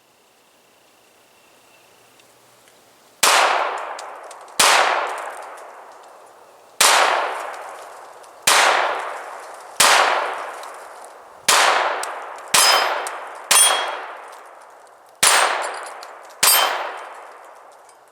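A string of ten shots from a Browning Buck Mark semi-automatic .22 LR pistol, fired one at a time about one to two seconds apart, each a sharp crack with a ringing tail.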